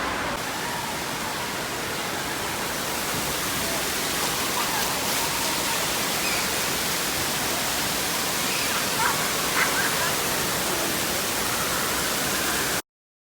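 Indoor waterpark ambience: steady rushing and splashing water with faint distant voices. It cuts off abruptly near the end.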